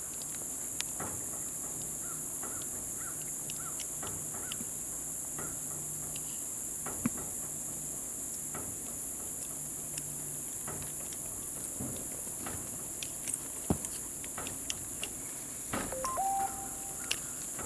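Steady high-pitched drone of an insect chorus, with faint scattered knocks and a short call near the end.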